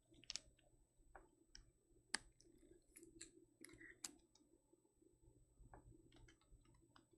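Near silence with faint, irregular clicks and taps from trading cards and rigid plastic top loaders being handled, the sharpest click about two seconds in.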